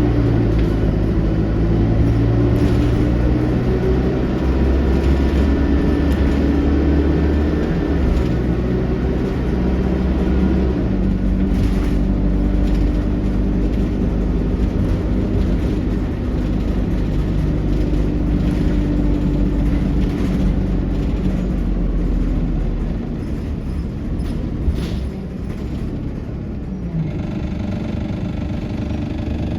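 ADL Enviro200 single-deck bus with an Allison 2000 automatic gearbox running under way, heard from on board as a loud, steady engine drone with a thin whine early on, the loud 'hoover' this bus is known for. The engine note shifts several times, easing off about two-thirds of the way through, and there is a single click near the end.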